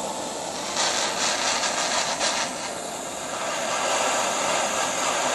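Handheld butane torch flame hissing steadily as it heats a quartz banger on a dab rig. It gets louder with a slight flutter about a second in, dips briefly near the middle, then builds again.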